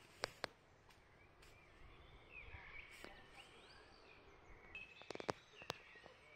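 Quiet outdoor ambience with faint distant birds chirping, their calls clustering in the middle and near the end, and a few sharp clicks.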